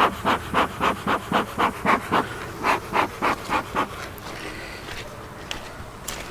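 Bee smoker bellows pumped in a quick run of puffs, about three a second, stopping about four seconds in: smoke being puffed into the hive to calm the bees before opening it.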